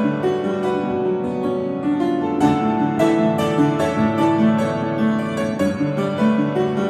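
Electronic keyboard played with both hands: a steady stream of quick notes over held lower notes.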